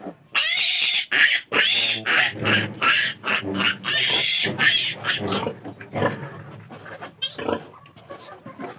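Two-day-old piglet squealing in a string of loud, high-pitched screams as a bloodless loop is pressed onto its tail to dock it. After about five seconds the squeals fade to softer grunts and squeaks.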